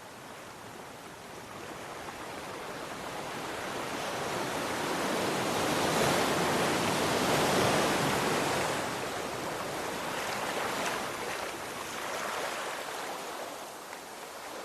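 Ocean waves breaking on the shore: the surf builds to one large wave crashing about halfway through, then fades into a lighter wash with smaller swells.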